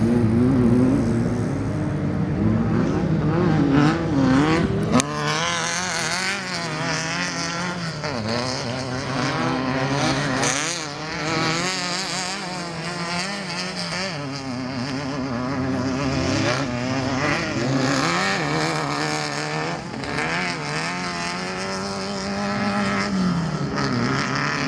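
Off-road race vehicle engines revving, their pitch rising and falling over and over. There is a sharp knock about five seconds in.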